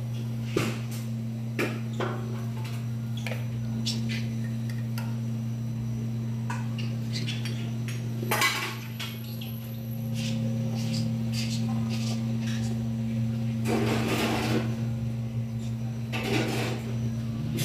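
Metal spoon clinking and scraping against an aluminium pressure-cooker pot of stew, in scattered knocks with a few longer scrapes, over a steady low hum.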